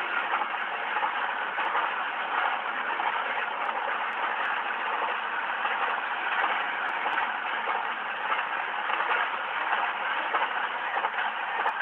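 Double-stack freight cars rolling past: a steady rushing noise of steel wheels on rail.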